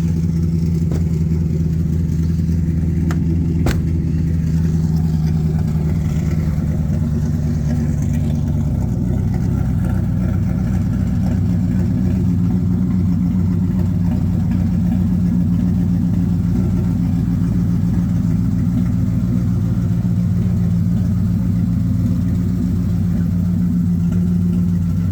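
Car engine running steadily at a constant speed. About nine seconds in, the engine note shifts up a little, then holds steady again.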